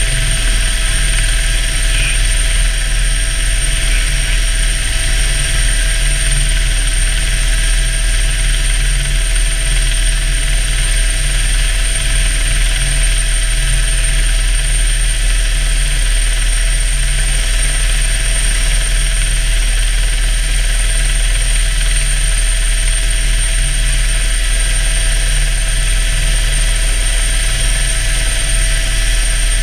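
Helicopter running in flight, heard from inside the cabin with the door open. A steady low rotor drone carries a thin, steady high whine above it.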